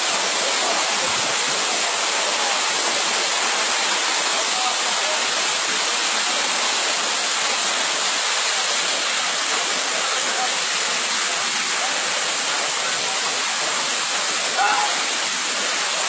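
Waterfall plunging over rocks into a pool: a steady, loud rush of water.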